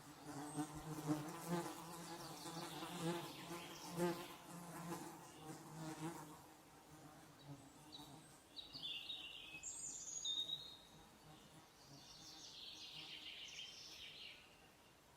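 A flying insect buzzing, its wavering drone rising and falling for the first six seconds or so, then fading out. Songbirds then chirp in short high phrases.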